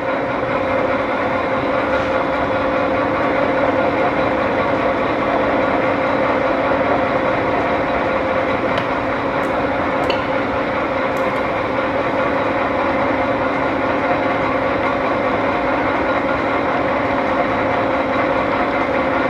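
Nishimori engine lathe running under power with its 3-jaw chuck spinning: a steady motor and headstock gear drive hum with a faint high whine. A few light clicks come about halfway through.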